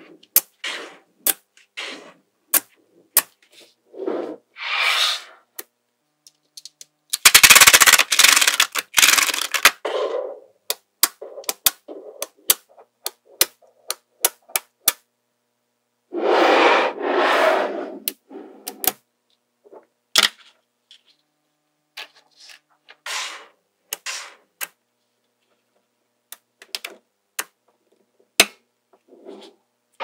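Small magnetic balls clicking and snapping together as slabs and bars of them are joined and pressed into shape by hand, with two longer bursts of dense rattling clatter, about a quarter of the way in and just past halfway.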